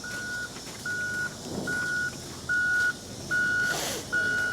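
Reversing alarm on heavy equipment beeping steadily, six even beeps of one high tone. A short hiss comes near the end.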